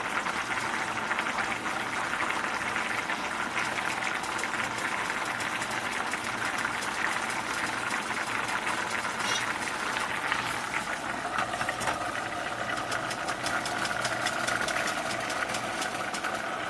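Steady, rapid scrubbing and scraping against a nonstick ceramic-coated pan: a dense run of small scratchy clicks as baked-on sauce is worked at.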